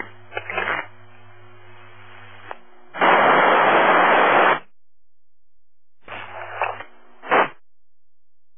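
Scanner radio between calls: a steady mains hum with short, unclear bits of transmission audio. About three seconds in comes a loud burst of radio static lasting about a second and a half, and near the end two more short bursts of garbled transmission.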